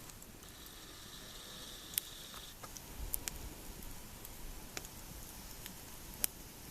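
Rain dripping: scattered single drops tapping sharply, a few seconds apart, over a soft steady hiss of light rain.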